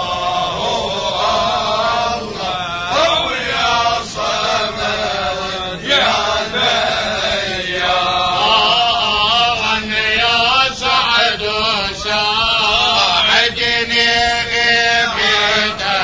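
Male voices chanting a tahlila, an Arabic Islamic devotional chant, in long, wavering melodic phrases.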